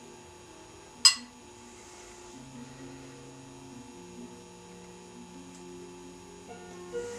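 Soft, held musical notes that shift in pitch every second or two, with a single sharp clink about a second in, the loudest sound.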